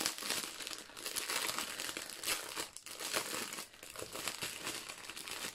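Clear plastic wrapping crinkling and rustling as it is pulled open and off a bundle of foil-sealed diamond-painting drill packets, in continual irregular crackles.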